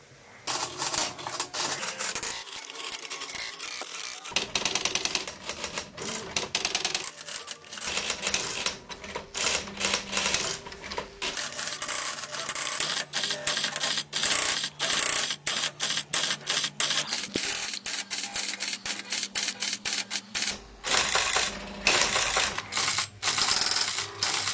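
Typewriter keys clacking in fast, irregular runs of strikes with a few short pauses. From about halfway in, low held tones that change pitch every few seconds sound beneath the clatter, typical of the MIDI sounds the hacked typewriter's keystrokes trigger.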